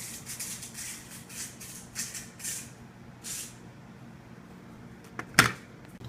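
Plastic laptop parts being handled during disassembly: a quick series of short scraping rustles, then a single sharp click a little after five seconds.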